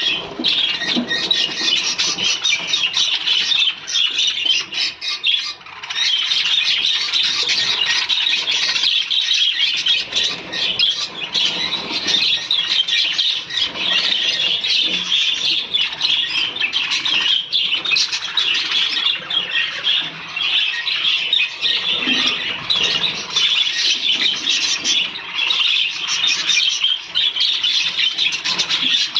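Many lovebirds chattering and squawking together: a dense, continuous high-pitched chatter.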